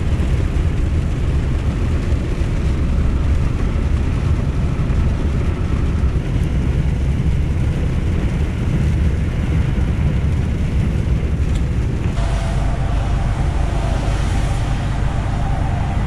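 Heavy truck driving at motorway speed, heard from inside the cab: a steady low rumble of engine and tyres. About twelve seconds in the sound changes and a faint droning tone joins the rumble.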